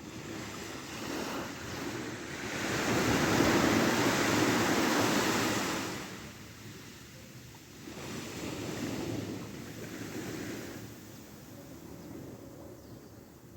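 Ocean surf washing onto a beach: one big wave breaks and rushes in a few seconds in, and a smaller one follows about halfway through.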